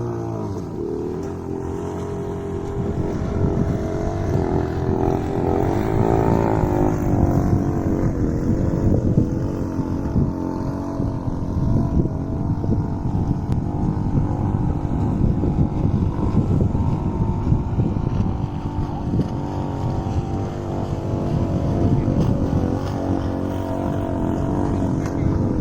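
Gas-engined RC model boat running on the water, its engine note rising and falling with the throttle about five to seven seconds in, with heavy wind buffeting the microphone.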